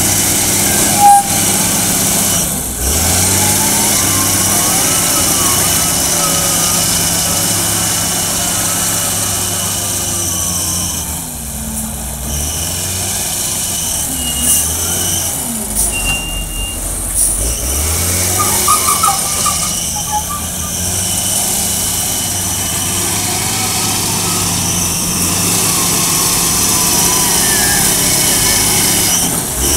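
Lonking wheel loader's diesel engine running under load while it digs and lifts its bucket, its pitch rising and falling a few times as it works. A brief high chirp about a second in.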